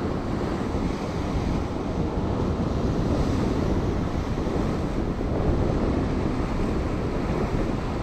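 Ocean surf washing in and breaking over coastal rocks, a steady rushing noise, with wind buffeting the microphone.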